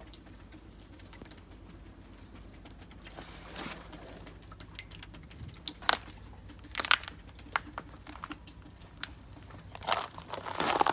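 Irregular crunching and crinkling noises with scattered sharp clicks, growing busier near the end, over a steady low hum.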